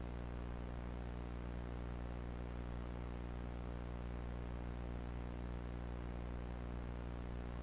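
Steady low buzzing hum with many overtones under a faint static hiss.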